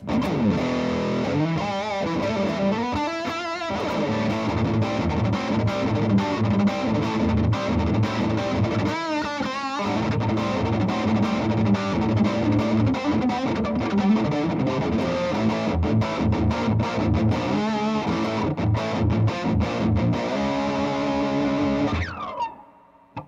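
Reverend Double Agent OG electric guitar played on its bridge humbucker through heavy, metal-style distortion: dense high-gain riffing with wavering bent notes about 3 and 9 seconds in, ending on a held chord that dies away near the end.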